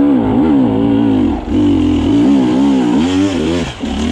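KTM 300 XC-W two-stroke single-cylinder dirt bike engine revving up and down with repeated throttle blips, with short drops in revs about a second and a half in and again near the end.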